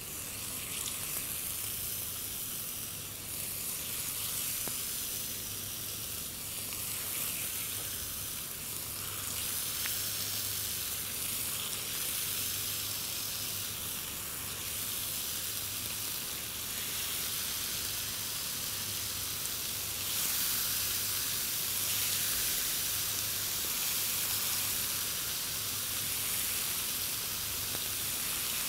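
Marinated raw chicken steaks sizzling steadily on a hot, oiled ribbed electric contact grill as the pieces are laid on the plate. The sizzle grows a little louder about two-thirds of the way through.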